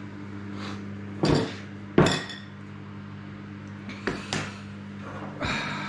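A glass bowl and a metal spoon knocking and clinking as they are handled on a wooden table: a few separate knocks, the sharpest about two seconds in, over a steady low hum.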